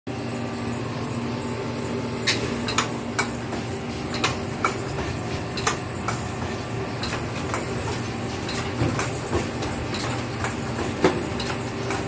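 Semi-automatic ice cream cone crimping machine running with a steady hum, with sharp metallic clicks and clacks at irregular intervals.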